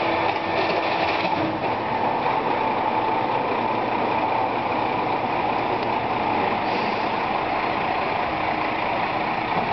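Compaction Systems rear-loader garbage truck running steadily.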